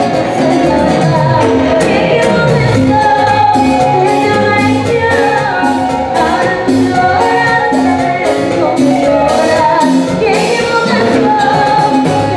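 Live Latin salsa-style band playing loudly, a woman singing lead over timbales, congas and keyboard.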